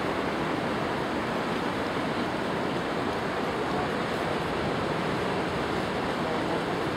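Steady rush of turbulent river water churning through a line of broken white water, a continuous even noise with no breaks.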